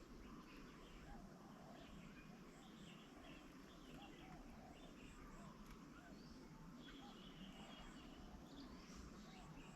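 Faint mixed calls and chirps of several birds over a low steady background hum, with a brief held high note about seven seconds in.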